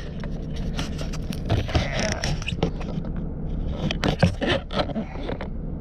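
Irregular scraping and scratching against a hard surface, many short strokes, over a steady low engine hum.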